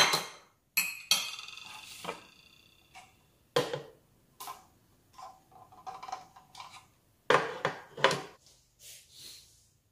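Plastic food processor being assembled: a series of knocks and clicks as the lid is set and locked onto the bowl and the pusher is fitted into the feed tube, with a ringing clink of a plate being put down about a second in. The loudest clicks come together near the end.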